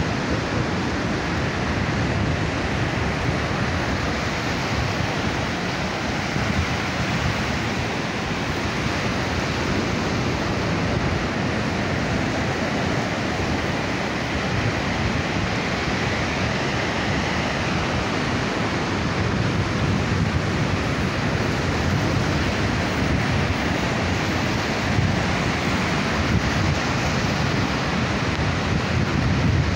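Sea surf breaking and washing up the beach, a steady rushing noise, with wind buffeting the microphone in a low, uneven rumble.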